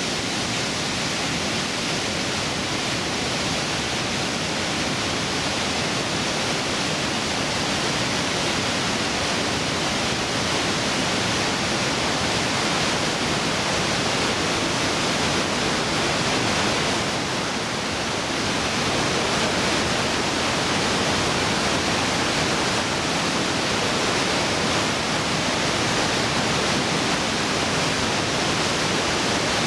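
Trümmelbach Falls, a glacier-fed waterfall, rushing through a narrow rock gorge: a loud, steady roar of water.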